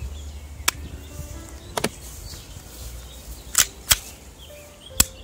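About six sharp clicks and snaps from an Action Army AAP-01 airsoft pistol being handled, spaced irregularly. They come over a low wind rumble on the microphone.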